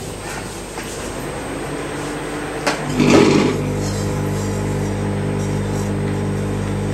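Microwave oven running with plasma burning inside: a steady electrical buzz, with a brief loud rush about three seconds in, after which the buzz becomes stronger and holds steady.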